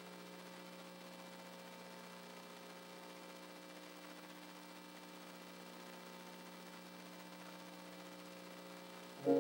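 Steady electrical hum made of a few constant tones, unchanging throughout, with no music playing. Keyboard music comes back in near the end.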